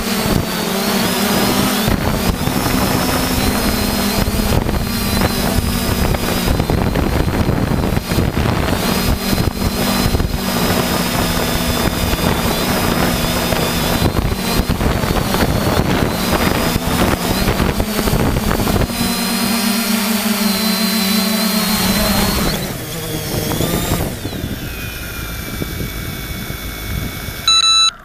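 Quadcopter drone's motors and propellers whirring steadily in flight, with wind rushing over the microphone. The motor hum drops away about 22 seconds in, and a brief loud tone sounds near the end as the drone comes to rest in the grass.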